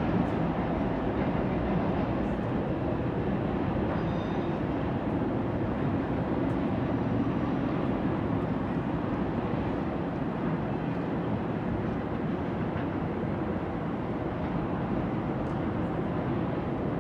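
Freight train's cars rolling steadily across a railroad bridge: a continuous, even rumble of wheels on rail.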